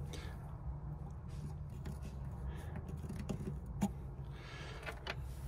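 Faint clicks and light rustles of a small plastic electronics box and its cables being handled, over a steady low hum.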